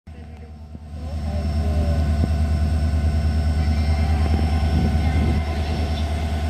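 EMD-built WDP4 diesel-electric locomotive, its two-stroke V16 diesel engine humming steadily. The deep hum grows louder over the first second, then holds steady.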